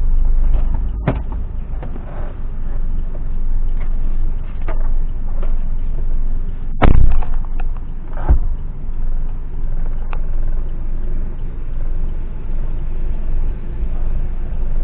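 Car engine idling with steady low cabin rumble, broken by several knocks and thumps, the loudest a heavy thump about seven seconds in and another about a second later.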